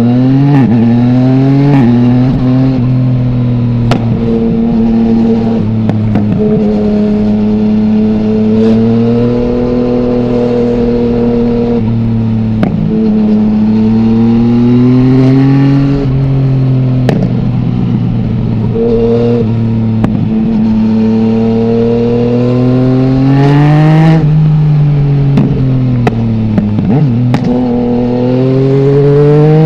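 2020 Yamaha MT-09's three-cylinder engine through an Akrapovic full-system exhaust with no dB killer, ridden at a steady pace with the throttle rolled on and off so the note rises and falls gently. About three quarters through it revs up sharply and drops back, then climbs again near the end, with short crackles scattered throughout.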